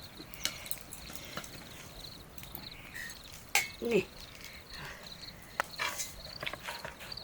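Crickets chirping in a steady series of short high chirps, with scattered sharp clicks and knocks and a brief pitched call, like a voice, about four seconds in.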